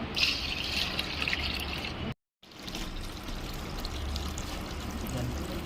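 Liquid being poured and trickling, strongest in the first second and a half, broken by a brief silence just after two seconds, then a steadier, softer trickle.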